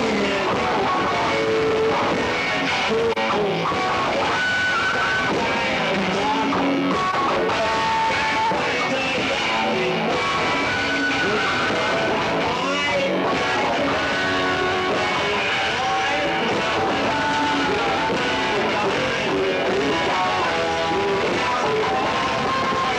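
Rock music with guitars, playing continuously at a steady level.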